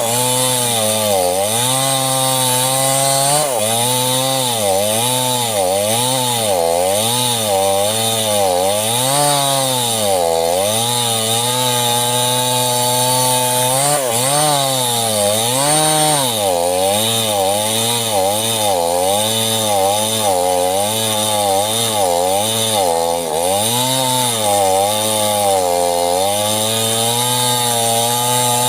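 Small chainsaw cutting sengon wood, its engine pitch dropping and rising again many times, roughly once or twice a second, as the chain loads up in the cut and frees.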